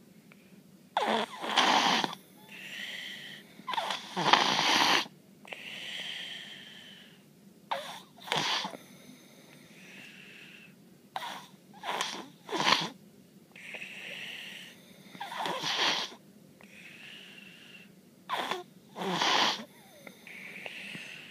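Baby snoring in sleep, loud like an adult. Loud rasping snores come about every three to four seconds, each followed by a softer, higher-pitched breath sound.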